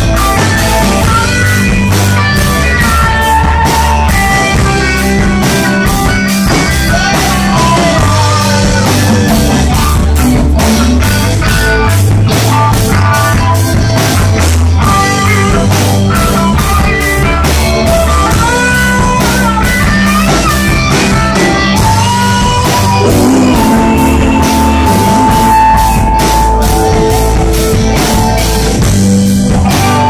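Live rock band playing loudly: electric guitars, bass guitar and drum kit.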